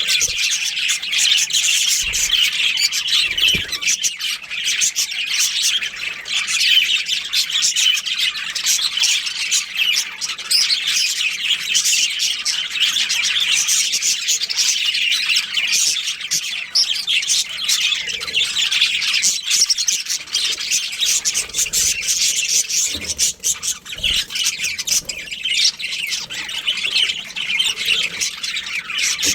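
A colony of budgerigars chirping and chattering: many birds calling at once in a dense, continuous, high-pitched twitter.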